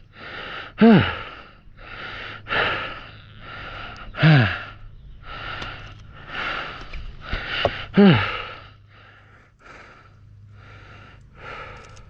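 A person breathing hard and rhythmically, catching their breath, with three louder sighing exhales that fall in pitch about one, four and eight seconds in.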